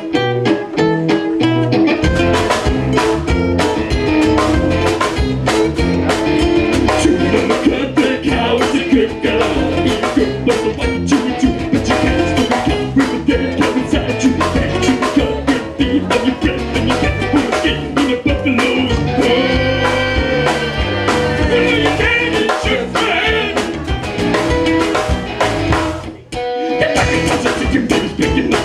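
Live folk band playing: acoustic and electric guitars with a drum kit and singing. The drums come in about two seconds in, and the band breaks off for a moment near the end.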